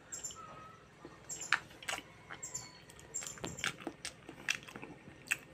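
Someone chewing a crunchy bite of food: irregular sharp crunches and clicks, roughly one or two a second.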